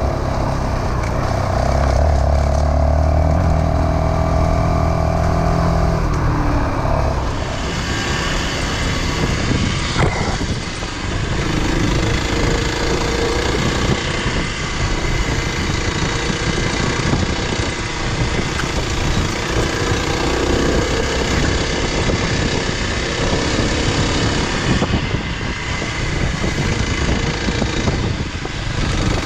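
Dual-sport motorcycle engine running at a steady pace on a dirt road. Its even note is clear for the first seven seconds or so, then a loud rushing noise covers it for the rest.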